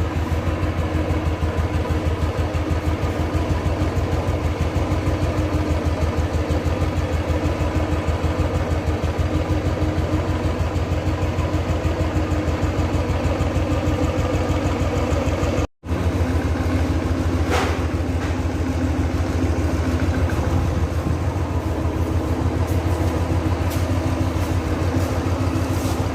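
Royal Enfield Thunderbird 350's single-cylinder engine idling with an even, rapid beat. A brief dropout from a cut comes about 16 seconds in, and the engine idles on after it. This is the engine that has the 'tik tik' noise.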